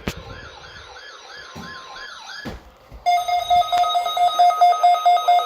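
Electronic alarms from weather radio receivers. First a warbling siren tone sweeps up and down about four times a second and stops with a click about two and a half seconds in. Half a second later a loud, fast-pulsing beep starts and keeps going.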